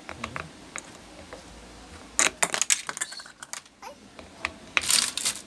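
Plastic clicking and rattling of a stand fan's blade and spinner cap being handled and tightened onto the motor shaft. A few light clicks come first, then louder clusters of clicks about two seconds in and again near the end.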